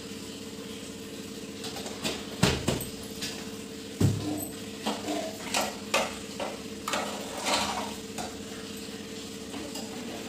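Steel kitchen utensils clinking and knocking: a spoon stirring and tapping inside a steel saucepan, and pans knocked against the gas stove, with two heavier knocks a couple of seconds in. A steady hum runs underneath.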